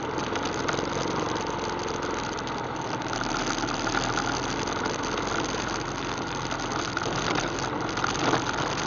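ATV engine running steadily as the quad rides off at low speed.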